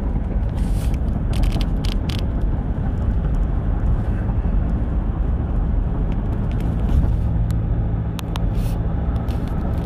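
Car engine and tyre road noise heard from inside the cabin while driving at steady speed, with a few light clicks in the first two seconds.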